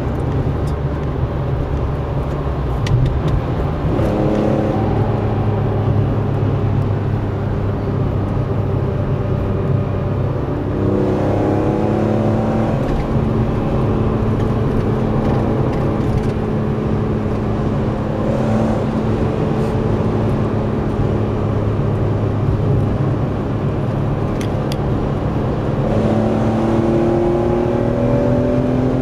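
BMW E46 M3's S54 3.2-litre straight-six running at Autobahn speed, heard from inside the cabin over road and wind noise. The engine note holds steady for long stretches and rises in pitch as the car accelerates, a little before midway and again near the end.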